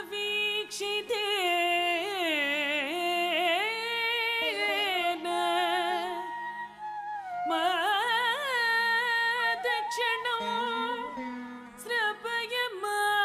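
Carnatic-style vocal singing, the melody sliding and wavering between notes, over a steady drone that holds throughout; the voice breaks off briefly about halfway through and again near the end.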